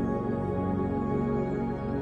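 Background music: calm, ambient new-age style with sustained chords.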